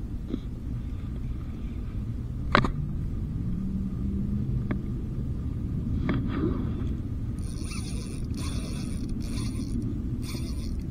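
A low steady rumble with a sharp click about two and a half seconds in. From about seven seconds in, a spinning reel buzzes in short rapid spurts under the load of a hooked bluefish.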